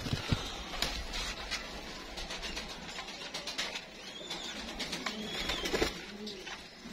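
Gubara fancy pigeons cooing softly, with a few sharp clicks in the first second or two.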